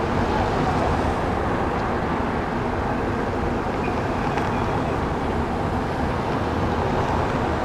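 Police cars driving past one after another over cobblestones, a steady mix of engine and tyre noise.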